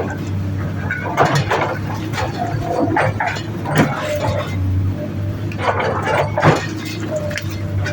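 Komatsu PC200-8 excavator's diesel engine running steadily, with irregular clanks and knocks from the machine at work.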